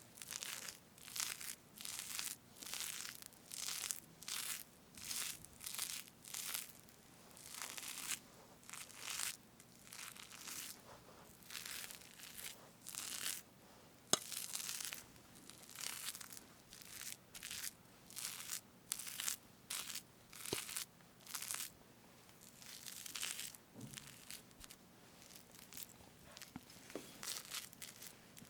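Fresh whipped cream on a strawberry cake being cut and parted, giving soft squishy strokes about once a second, with one sharp click about halfway through.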